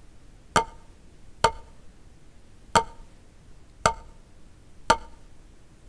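Wooden drumsticks striking a drum practice pad in single full strokes, five sharp hits spaced about a second apart, each with a short ring.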